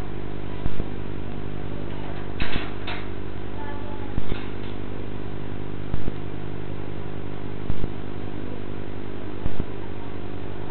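A steady low hum with even overtones. A sharp click sounds about every second and three-quarters, and two short scratchy noises come about two and a half seconds in.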